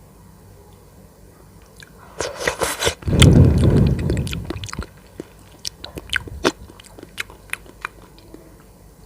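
Close-miked mouth sounds of someone eating a soft dessert. About two seconds in there is a patch of wet crackling, then a loud chewing burst, then a run of scattered sharp wet mouth clicks that thin out near the end.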